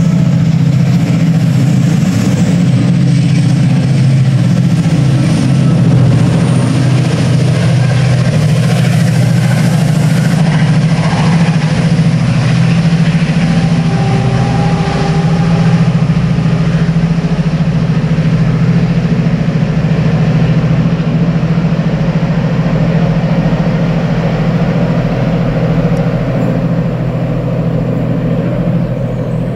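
Diesel-hauled train pulling out, its locomotive engine running loud and steady. The sound eases slightly near the end as the train draws away.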